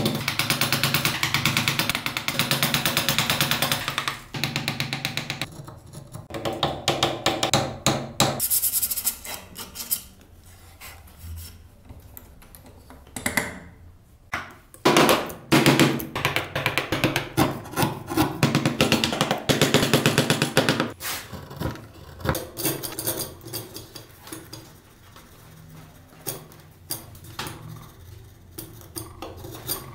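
Hand tools working small wooden carving pieces: a dense run of fast scraping strokes at the start, then scattered scraping and cutting strokes with a few sharp knocks around the middle, and chisel paring near the end.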